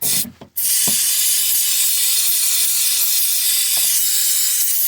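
Aerosol cleaner spray can hissing: a brief squirt, then a long steady spray starting about half a second in. It is being sprayed onto dirty car wiring to clean the grime off the wires.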